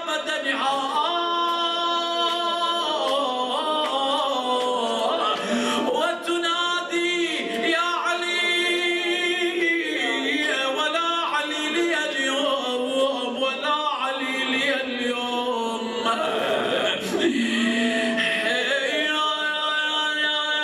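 A man's unaccompanied voice chanting an Arabic naei, a mourning lament, through a microphone in long held notes that bend and waver in pitch, ending on one long steady note.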